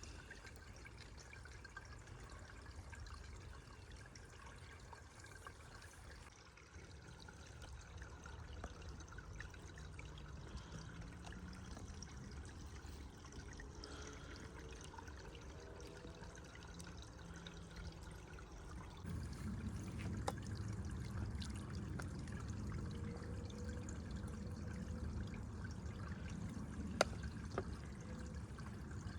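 Water pouring and trickling steadily, growing louder about 19 seconds in, with a single sharp click near the end.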